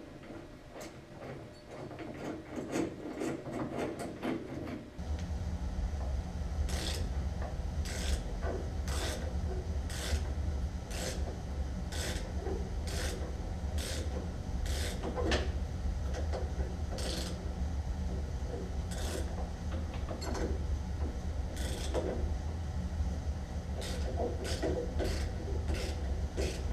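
Hand tool working a stubborn suspension bolt: short sharp metallic clicks about once a second, with rubbing and rasping between them. A steady low hum starts about five seconds in and runs on underneath.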